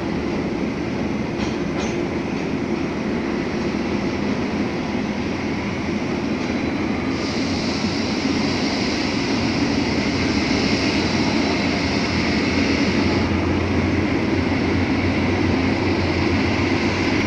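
Diesel-hauled freight train rolling slowly through a rail yard: a steady rumble of wheels and cars, with a high steady whine from about seven to thirteen seconds in. The locomotive's low engine drone grows stronger toward the end as it approaches.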